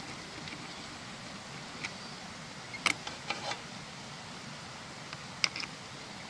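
A few short, sharp clicks and taps, spaced irregularly, from hands fitting wires to the terminals of an electric fence energizer, over a steady background hiss.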